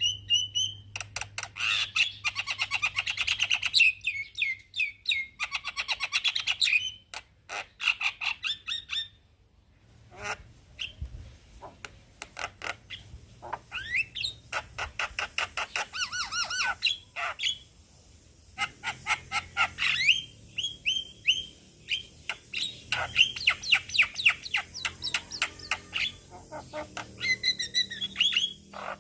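Male Javan myna calling: rapid runs of harsh chattering notes and clicks mixed with short whistled calls, in several bouts with a brief lull about a third of the way through.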